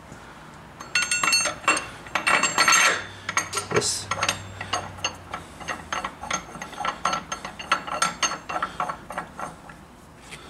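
Steel primary-clutch puller clinking and rattling against the hub of a Polaris RZR's primary clutch as it is fitted and threaded in by hand: a quick run of sharp, ringing metal clicks that starts about a second in and dies away near the end.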